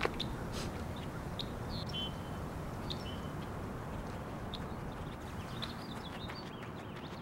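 Scattered short bird chirps over a steady, even background hiss of outdoor ambience.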